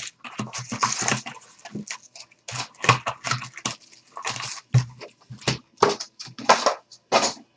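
Foil trading-card packs crinkling and rustling as they are grabbed out of a Topps Chrome box and stacked, in quick irregular bursts.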